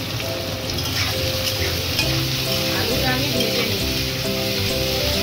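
Potato sticks sizzling as they fry in hot oil in a metal kadai, with a spatula scraping and stirring them against the pan.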